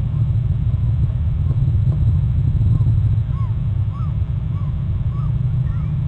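A steady low rumble, with a faint series of short bird calls, each rising and falling, about two a second from about three seconds in.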